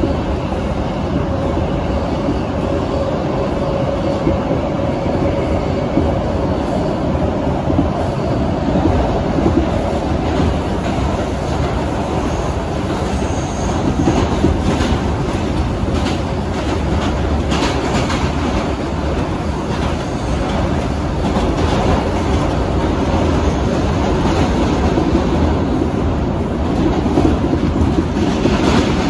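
Bombardier R142 subway car running at speed, heard from inside the car: a steady loud rumble of wheels on rail, with clicks over the rail joints and a brief high squeal about 13 seconds in.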